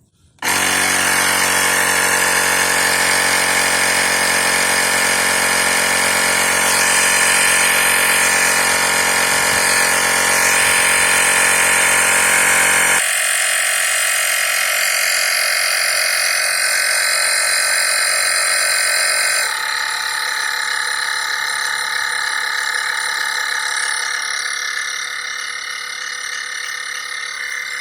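Small 12-volt digital air compressor built into an Everstart jump starter, running steadily as it pumps toward a preset 33 psi. About halfway through its sound thins and then drops a little: it is slowing down as it nears the preset pressure so as not to overshoot.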